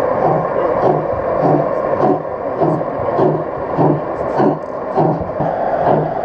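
Large-scale model steam locomotive of the DB class 01 chuffing as it rolls slowly, an even beat of about two chuffs a second over the busy hum of an exhibition hall.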